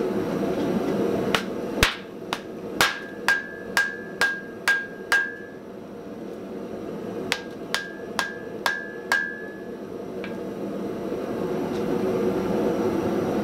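Hammer blows on a glowing Damascus steel billet at the anvil, setting a forge weld between the stacked billets. There are about nine strikes at roughly two a second, a pause, then five more, most with a short bright ring. A steady roar runs at the start and swells again near the end.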